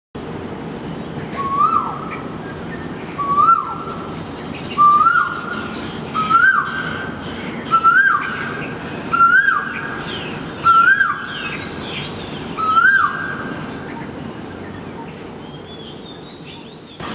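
Asian koel (common koel) calling: eight loud, sharp two-part 'ko-el' calls at an even pace of about one every second and a half, each a quick rise and fall in pitch, stopping about 13 seconds in. A steady low hum runs underneath.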